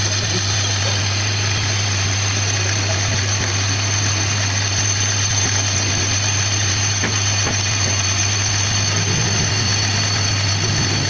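Lathe running steadily while turning a brake disc, a constant low motor hum under a steady high-pitched whine and hiss.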